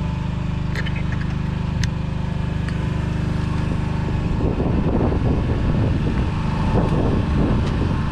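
Boat's generator running with a steady hum; a rougher rumbling noise builds over it from about halfway through, and there are a couple of light clicks before that.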